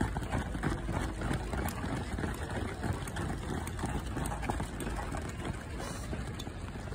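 Footfalls of a pack of runners on a synthetic track, many quick overlapping steps, over a steady low rumble.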